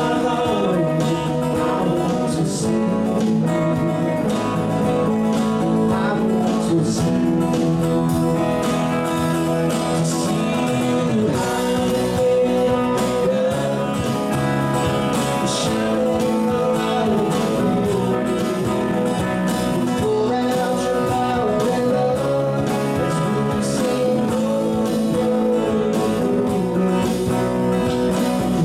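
A live band playing a song: acoustic guitar, electric guitar, electric bass and drum kit, with a melody line gliding over a steady low end.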